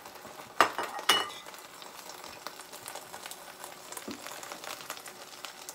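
Beaten egg sizzling and crackling in hot oil in a frying pan. Near the start come two sharp metallic clinks about half a second apart.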